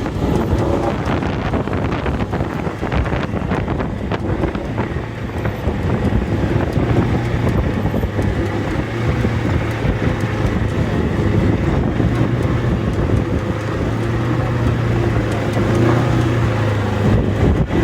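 Strong wind buffeting the microphone over a steady low hum of a boat engine running, the hum growing stronger about halfway through.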